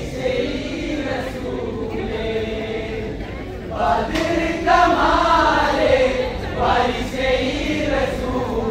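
A group of men chanting a kolkali song together, growing louder about four seconds in.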